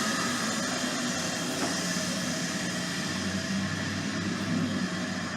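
Steady engine drone with a wide hiss and a low hum that shifts slightly in pitch.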